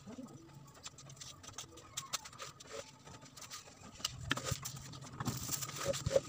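Faint scattered light clicks and taps. A low hum comes in about four seconds in and grows louder toward the end.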